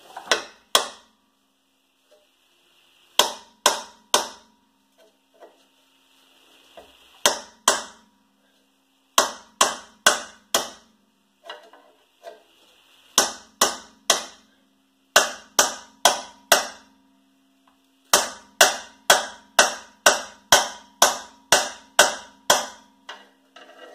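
Hammer blows on a chisel against steel, working a stuck rear wheel hub bearing loose from its mount: sharp ringing strikes in bursts of two to four with pauses between, then a quicker run of about ten near the end.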